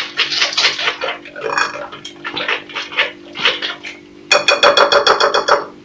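A utensil beating lemon cake batter in a bowl, clinking against its sides in repeated strokes, then a faster run of rapid clatter for about a second and a half near the end. A faint steady hum sits underneath.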